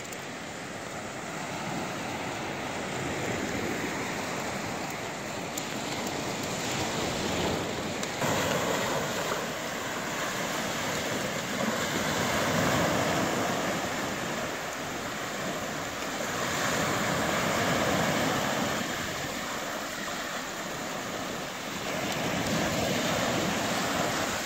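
Small waves breaking and washing up on a sandy beach, the surf noise swelling and falling back every few seconds.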